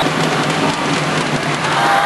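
Volleyball crowd applauding after a point, a dense patter of clapping with cheering mixed in.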